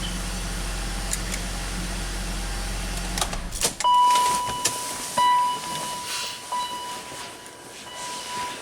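BMW X5 six-cylinder engine idling smoothly, then shut off about three seconds in. A few clicks and rattles follow, then a steady electronic beep that runs on with short breaks.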